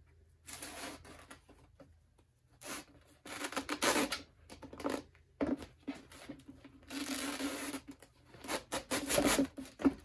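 Peel ply fabric being stripped off a freshly fiberglassed cardboard rocket airframe tube, ripping away from the cured epoxy in a series of uneven pulls.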